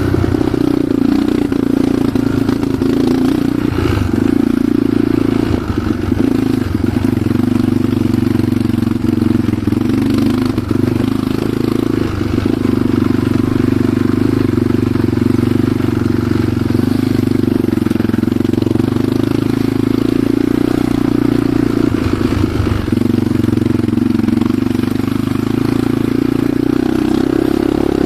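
Enduro motorcycle engine running at a fairly steady speed while riding off-road, with scattered knocks and rattles from the bike over rough ground.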